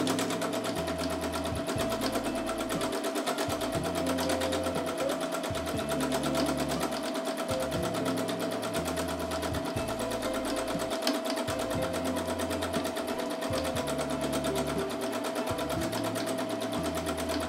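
Domestic sewing machine stitching steadily at speed in free-motion mode, feed dogs dropped and the fabric guided by hand: a fast, even needle clatter over a steady motor whine.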